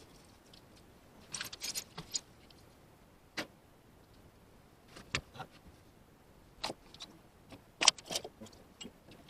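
Scattered clinks and rattles of small objects being handled, with a brief cluster early and the sharpest pair of clicks about eight seconds in.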